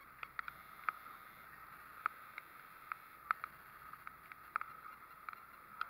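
Spinning reel being wound against a fish on a bent rod: faint, irregular ticks, two or three a second, over a steady soft hiss.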